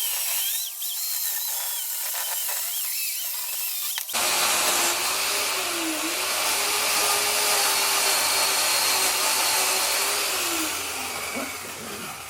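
Worx electric chainsaw running and cutting into a log. The sound turns abruptly louder and fuller about four seconds in. The motor's pitch dips briefly under load and sags again near the end as it winds down.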